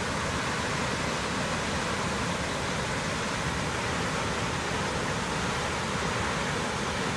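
Dam spillway discharging a heavy flow of water, a steady, unbroken rush of falling water; the release is swollen by heavy typhoon rain.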